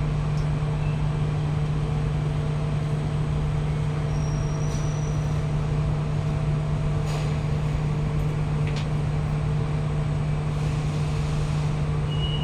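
Steady hum and rumble inside a Kawasaki–CRRC Qingdao Sifang CT251 metro train carriage, with a few faint clicks and a high steady tone starting near the end.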